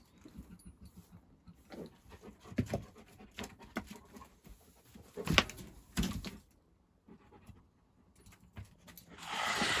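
A Moscow Watchdog panting in short, irregular breaths, with two sharp knocks about five and six seconds in. Near the end a rush of noise starts up.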